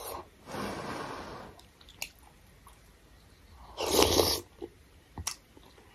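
Slurping and chewing a spoonful of hot noodle soup (vegetable thukpa): a long slurp about half a second in, a shorter, louder slurp about four seconds in as the noodles go in, with faint mouth clicks between.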